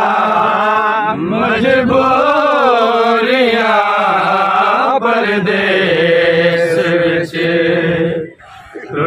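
Men chanting a noha, a Shia Muharram lament, in long drawn-out lines that rise and fall in pitch. The chant breaks off briefly near the end before the next line starts.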